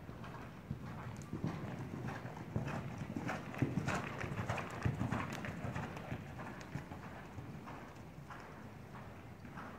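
A ridden horse's hoofbeats on soft arena footing, a steady run of dull strikes that grows loudest as the horse passes close, about four seconds in, then fades as it moves away.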